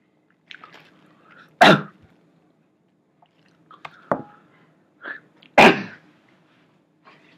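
A man sneezing twice, about four seconds apart, each loud burst led by a short catch of breath, with a smaller outburst between them. The sneezes come right after a bite of hot chilli wings, a reaction to the spice.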